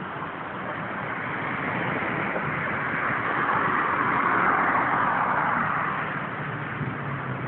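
A car passing by on the street, its sound swelling to a peak about four to five seconds in and then fading away.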